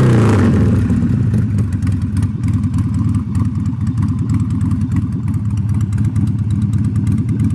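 2009 Harley-Davidson Sportster 1200's air-cooled V-twin running through Screamin' Eagle slip-on mufflers. It settles down from a throttle blip at the start into a steady, loping idle.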